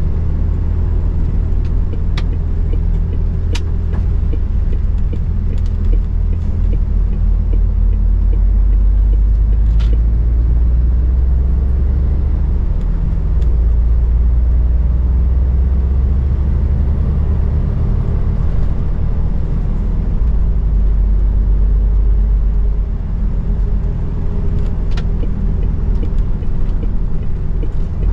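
MAN truck's diesel engine and road rumble heard from inside the cab while driving, a steady low drone that swells and eases a few times. A few sharp clicks sound now and then.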